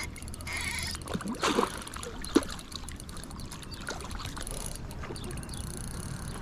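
Hooked trout splashing at the water's surface as it is played in close to the bank on a light spinning rod, with a sharp click about two and a half seconds in.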